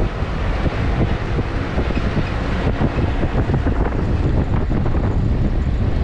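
Ute driving along a dirt bush track: a steady rumble of engine and tyres on the gravel, with wind buffeting the microphone.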